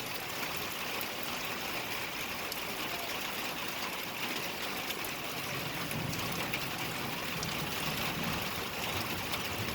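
Steady rain falling, a continuous even hiss with faint scattered drip ticks.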